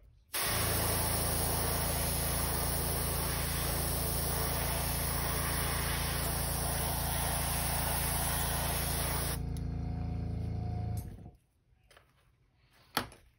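Airbrush spraying metallic lacquer paint: a steady hiss of air over the low hum of its compressor. About nine seconds in the spraying stops, the compressor runs on for a second or two and shuts off, and a small click follows near the end.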